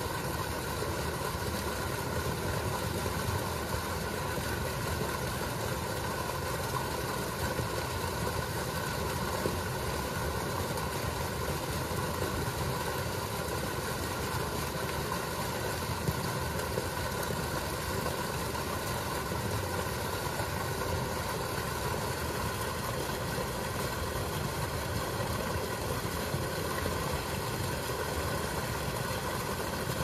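A motor running steadily, an even mechanical hum and rush with no change.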